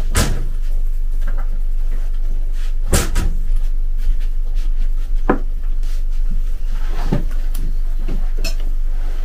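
Four or five separate knocks and clunks of kitchen things being handled, probably a cupboard door and containers, as salt is fetched for the soup, over a steady low electrical hum.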